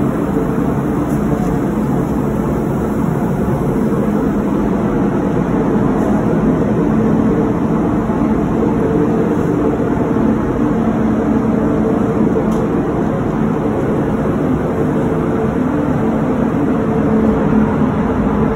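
Spray booth ventilation fans running: a steady rush of moving air with a low hum underneath.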